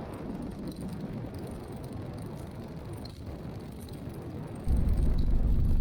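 Muffled engine and airflow noise of a Team Minimax 1100R ultralight heard from the cockpit while taxiing, a steady rumble. Near the end a louder low hum cuts in suddenly, as the radio opens just before a tower call.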